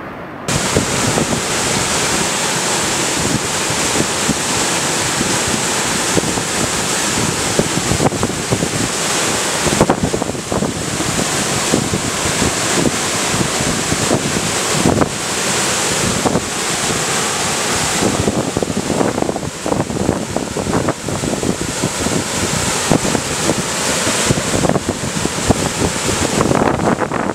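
Floodwater rushing steadily through the dam's spillway gates, starting abruptly about half a second in, with wind buffeting the microphone in uneven low thumps.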